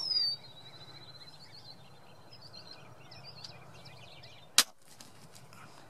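A songbird's falling whistle and high warbling trill at the start. About four and a half seconds in comes a single sharp shot at a turkey, very short and the loudest sound.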